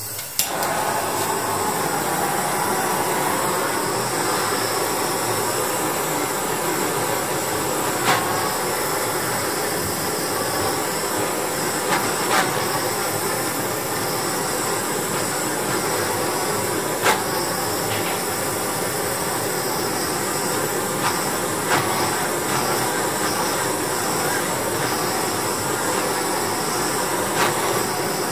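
Aerosol spray paint can hissing steadily as black paint is sprayed onto a small die-cast toy part, with a few brief clicks now and then.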